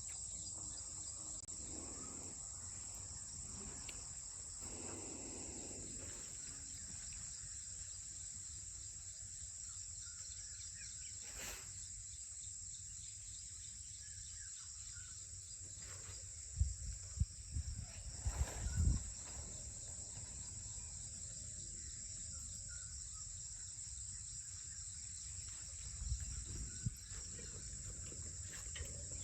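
Steady high-pitched chorus of insects, with a few dull low thumps partway through and again near the end.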